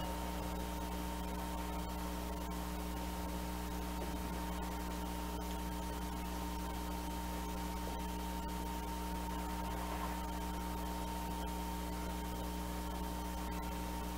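Motorized display turntable running steadily: a constant low electric hum with a faint high steady whine from its small motor.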